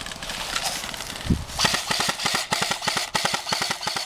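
Airsoft guns firing on full auto: a rapid stream of sharp clicking shots, about ten a second, starting about a second and a half in after some fainter scattered shots. A dull thump comes just before the burst starts.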